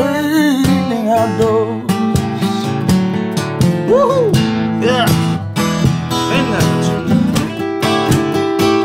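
Two acoustic guitars playing a blues passage: strummed chords under a lead line whose notes bend and waver.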